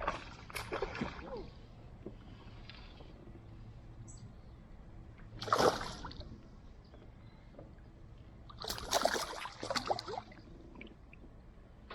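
Water splashing beside a kayak in three bursts, the loudest about halfway through, as a hooked bass thrashes at the surface while it is brought in.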